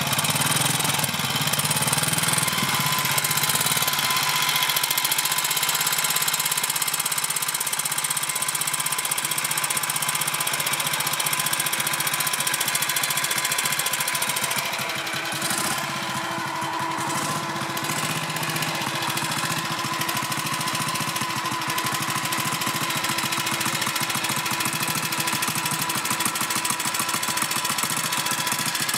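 BSA M20 single-cylinder side-valve motorcycle engine running steadily with even, rapid firing strokes, with a slight dip in level about halfway through. The owner hears a curious noise in it that stops and starts and is hard to pick out.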